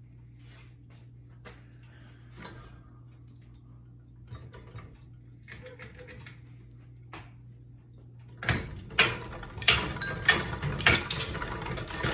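Scattered light clicks and knocks over a low hum. About eight seconds in, a sudden loud, continuous clatter of small hard objects rattling and knocking together starts.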